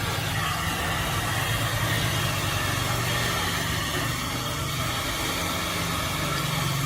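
A small electric motor running steadily: a low hum under a rushing hiss of moving air.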